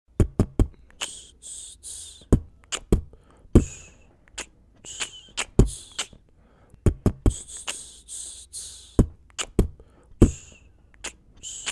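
Sparse hip-hop beat with no vocals: sharp kick-like thumps and longer hissing snare-like hits, with short quiet gaps between them.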